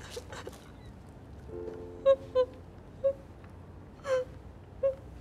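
A woman crying: short choked sobs catch in her voice four times, with a ragged gasping breath in between, over a soft held music chord.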